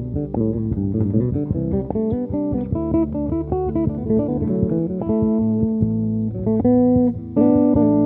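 Electric bass played solo through effects in a free improvisation: a stream of quick plucked notes, then long held tones in the second half.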